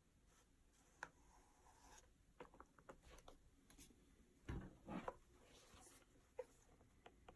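Faint scratchy rubbing and small clicks of a liquid edge-dressing applicator worked along the edge of a leather shoe sole, with two soft knocks about halfway through.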